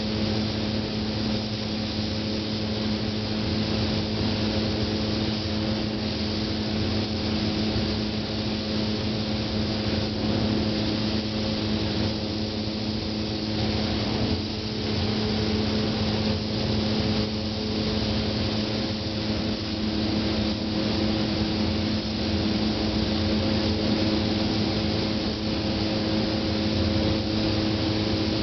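Steady machine hum from a running motor, with an even hiss of air over it, the sound of spray-painting equipment at work.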